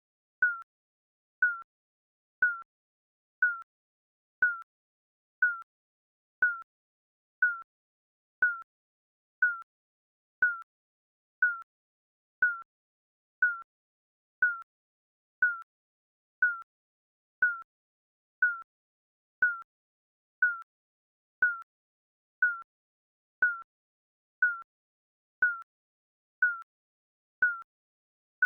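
Digital countdown timer beeping once a second, each beep a short high electronic blip with silence between.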